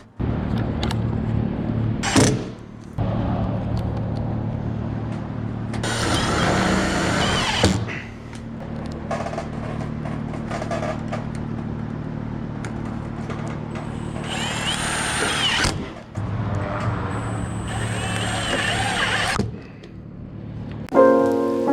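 Work noise from fitting metal roof sheets: a steady low machine hum, a sharp knock about two seconds in, and three louder, harsher bursts of about two seconds each.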